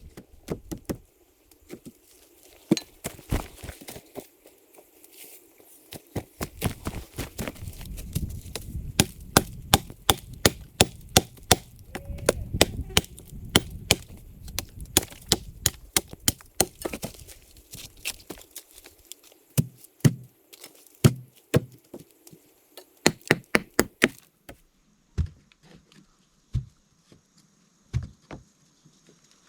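Repeated sharp knocks of a tool striking wood, in quick irregular runs: wooden poles being chopped and knocked into place to reinforce a camp platform's posts.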